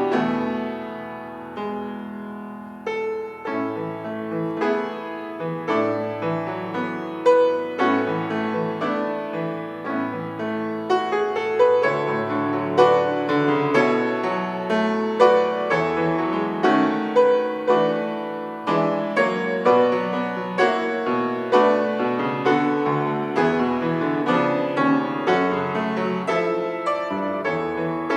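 Solo piano playing a continuous, moderately paced piece, with notes struck one after another and chords ringing under them.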